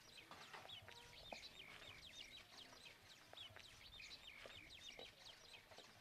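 Faint chirping of many small birds: quick, high chirps repeating over and over, with a few soft knocks among them.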